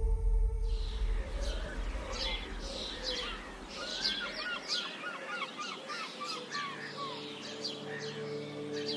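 Several birds chirping and calling, with many short notes overlapping, including a quick run of repeated notes about halfway through.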